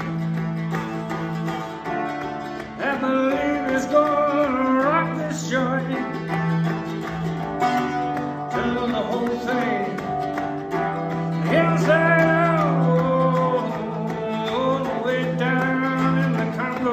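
Music: a song with a singing voice over plucked strings and a steady low drone.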